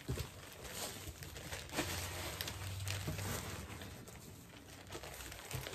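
Plastic mailer bags crinkling and rustling in irregular bursts as clothing is handled and pulled out of them.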